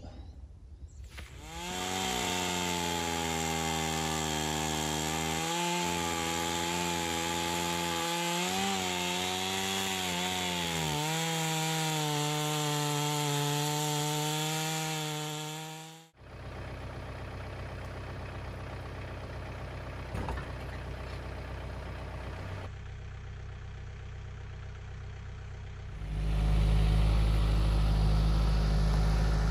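Gas chainsaw running at full throttle while crosscutting a large American chestnut log, its pitch dipping several times as the chain bites into the wood; it stops abruptly about halfway through. A tractor engine follows, running steadily, and grows louder over the last few seconds as the tractor approaches.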